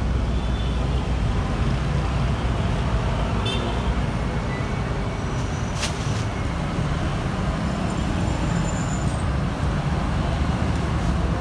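Busy street traffic: a steady low rumble of motorbikes, cars and buses passing, with a single sharp click about six seconds in.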